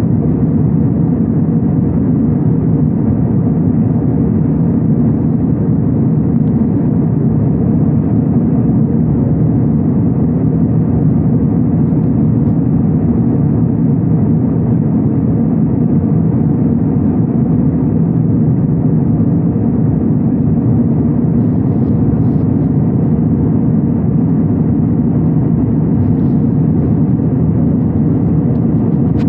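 Jet airliner cabin noise in flight: the engines and rushing air make a steady, low, even drone inside the cabin.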